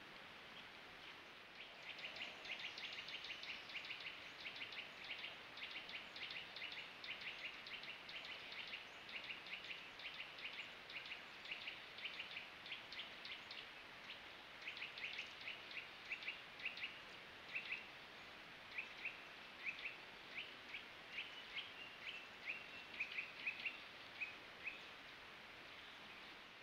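A bird calling in long runs of rapid, clicking chirps, unbroken for the first half and then in shorter separate bursts, over a faint steady hiss.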